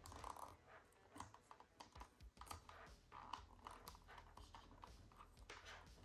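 Faint crackling and scratching of black electrical tape being wound around a spliced power cord, with small irregular clicks as fingers handle and press the cord.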